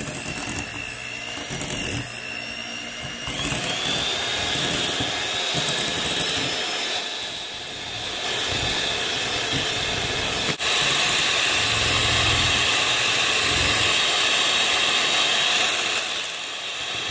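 Electric mixer running fast, beating margarine, egg yolks and vanilla powder until fluffy; its motor whine steps up in pitch a few seconds in and then holds steady.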